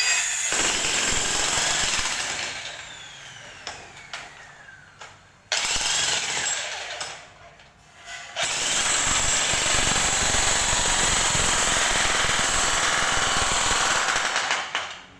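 Jackhammer hammering in three runs. The first, at the start, dies away with a falling whine. A short burst comes about a third of the way in, and a steady run of about six seconds follows from a little past halfway until just before the end.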